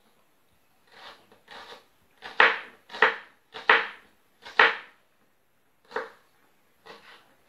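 Kitchen knife chopping green onion on a wooden cutting board: about nine sharp chops at an uneven pace, roughly one every half second to second, the loudest in the middle.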